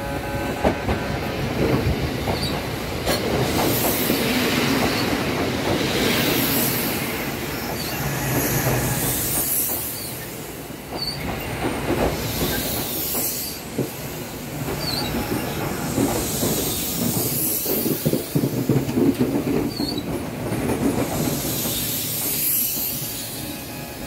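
Kintetsu 1435-series and 9200-series electric train rolling slowly into the station and braking to a stop, with the wheels clacking over rail joints and squealing on the rails every few seconds.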